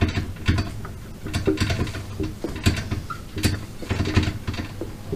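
Dry-erase marker squeaking and scratching on a whiteboard as words are written, in many short, irregular strokes.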